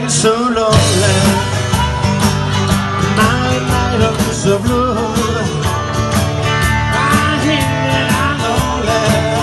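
Rockabilly band playing live: an amplified harmonica played into a vocal microphone takes the lead with bending, wavering notes over strummed acoustic guitar, electric guitar, upright bass and drums keeping a steady beat.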